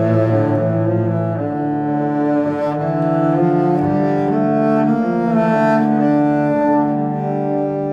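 Music of slow, sustained low notes, the pitch changing every second or so.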